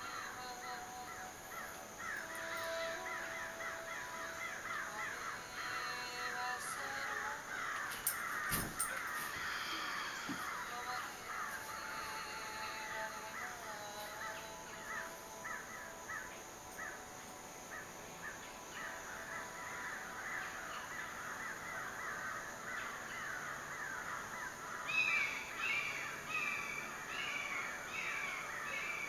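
Birds calling in the trees: a dense run of quick chirps throughout, with a series of louder repeated calls near the end. A single sharp knock about eight seconds in.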